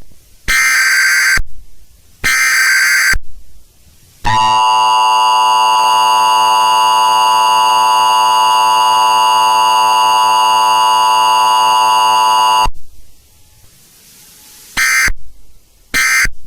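Emergency Alert System test signal. Two SAME header data bursts of about a second each come first. Then the EAS attention signal sounds as a steady alarm tone for about eight seconds and cuts off suddenly. Two short end-of-message data bursts follow near the end.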